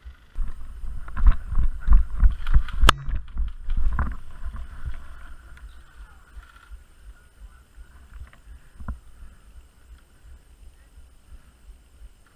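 Irregular thumps and rustling close to the microphone for about five seconds, with one sharp click about three seconds in, then quieter, over a steady low rumble of wind on the microphone.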